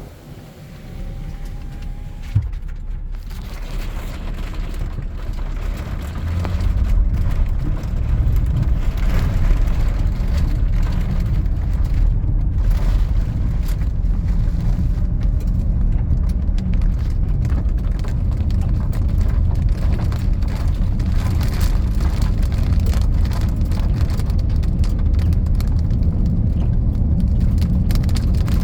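Thunderstorm wind rushing and buffeting the microphone as a low rumble, with rain and hail striking in many sharp little hits. It grows much louder about six seconds in and then stays strong.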